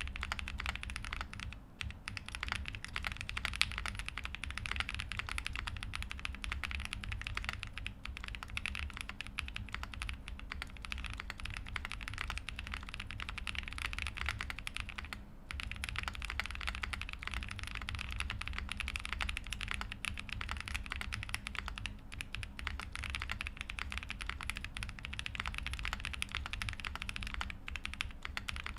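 Steady, fast typing on a custom mechanical keyboard: a GrayStudios Space80 TKL with lubed Boba U4T tactile switches on an FR4 plate, PE foam dampening and GMK Shanshui keycaps, giving a deeper, not very loud keystroke sound. Brief pauses come about two seconds in and again about halfway.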